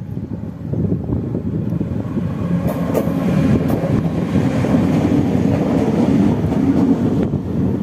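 Two ÖBB electric locomotives running past close by on the station track: a rumble of wheels on rails that grows louder as they draw level, with a few sharp clicks from the wheels about three seconds in and a steady hum under the rumble.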